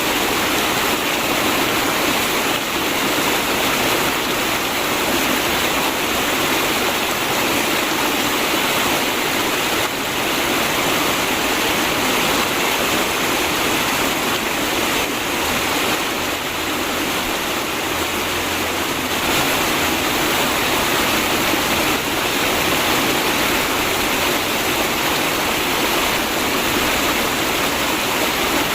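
Flowing river water, a steady unbroken sound.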